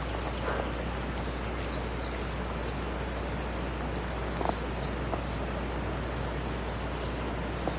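Steady outdoor background noise: a constant low rumble under an even hiss, with a few faint ticks scattered through.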